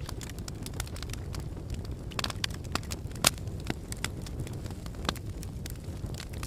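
Wood fire burning in a fireplace: a steady low rumble of flames with irregular crackles and pops, the sharpest snap about halfway through.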